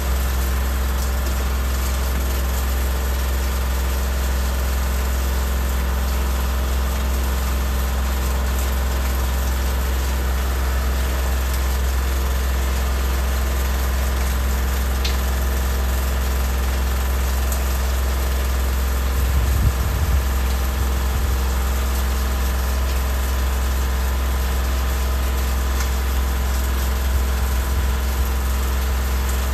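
An engine idling steadily, a constant deep hum, with a brief low rumble about two-thirds of the way through.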